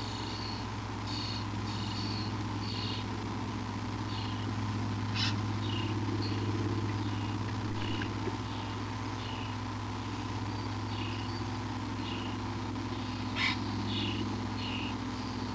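Domestic cat purring steadily, with short high chirps in the background and two brief sharp noises, about five and thirteen seconds in.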